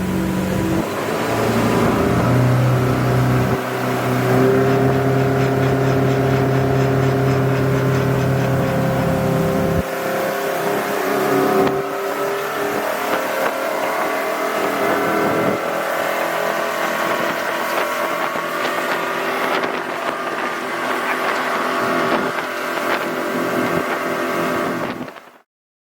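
Twin Volvo Penta 380 sterndrive engines running steadily with the boat under way, their pitch shifting about ten seconds in. The sound cuts off abruptly near the end.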